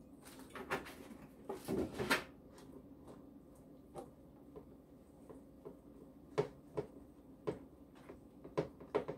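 Pancake batter being made in a bowl: a short spell of pouring and handling with a knock about two seconds in, then the batter mixed by hand with a whisk, giving scattered light clicks against the bowl.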